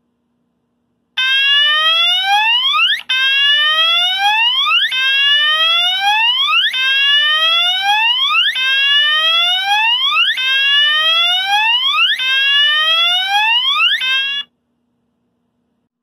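Gentex Commander electronic fire alarm horn/strobe sounding its whoop tone: a loud rising sweep repeated about seven times, each a little under two seconds long. It starts about a second in and cuts off near the end.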